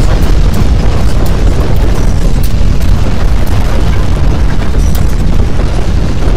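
Earthquake shaking sound effect: a loud, unbroken deep rumble with scattered sharp clicks over it.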